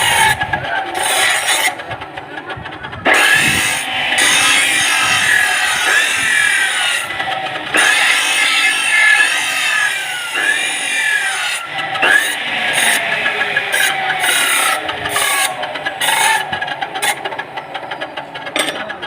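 A workshop tool cutting or grinding, a rough rasping noise with many short falling tones, some of them squeal-like, repeating throughout.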